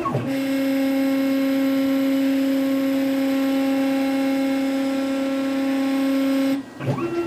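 Stepper motors of a DIY CNC machine driving an axis at a slow, steady feed during an automatic center-finding probe move: a steady pitched whine that stops near the end, with short pitch sweeps as the motors speed up and slow down. The motors are noisy at this slow speed.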